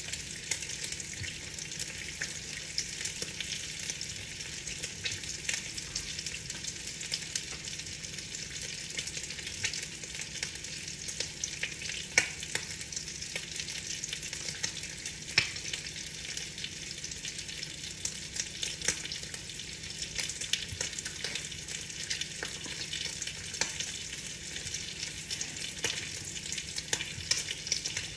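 Steady rain on window glass: a dense, even hiss of rainfall with many small, sharp taps of individual drops scattered throughout.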